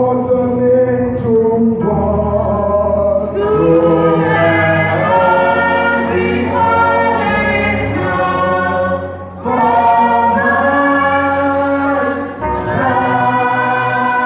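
A church choir of mostly women's voices singing a gospel hymn in sustained phrases, with short breaks between phrases about nine and twelve seconds in.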